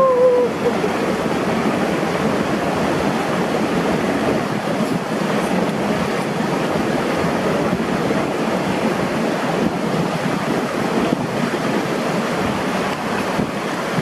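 Steady rushing and splashing of a small waterfall cascade pouring into a shallow rocky pool, churning around a bather. A brief voice sounds right at the start.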